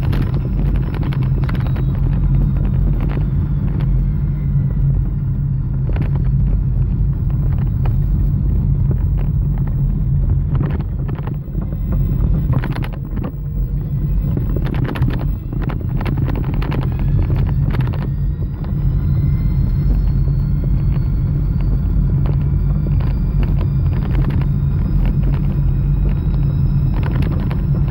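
REVA G-Wiz electric car on the move: a steady low rumble of road and tyre noise with the drive motor's thin whine falling slowly in pitch, then rising again through the second half, and frequent knocks and rattles from the body.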